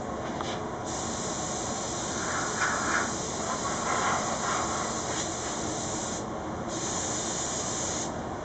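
Gravity-feed air spray gun hissing as it sprays clear lacquer onto a guitar. The trigger is pulled about a second in and released briefly around six seconds and again near the end, over a steady rush of air.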